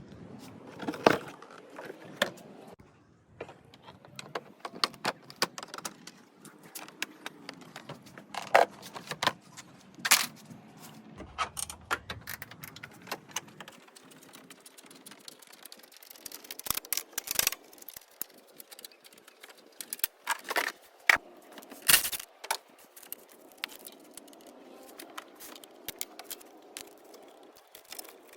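Hand tools and metal engine parts clicking, clinking and scraping at irregular intervals as fuel injectors are swapped between cylinders on a four-cylinder engine.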